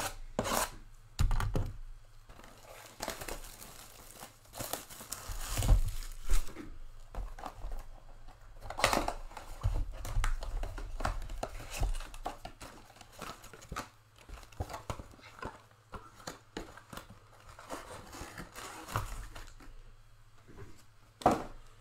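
A cardboard trading card box being ripped open, then its foil card packs crinkling and rustling as they are handled, in irregular bursts of tearing and crinkling.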